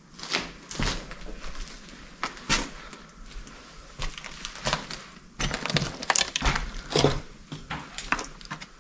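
Footsteps crunching and cracking over debris on the floor, an uneven run of steps that comes faster and denser from about halfway through.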